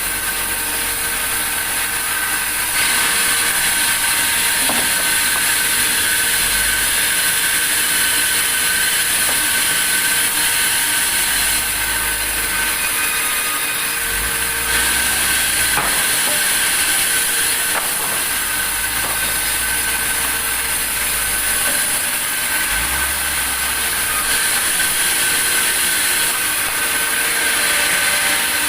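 Sawmill saw running and cutting through a log: a loud, continuous machine noise with a steady high-pitched whine. The noise changes several times as the cut goes on.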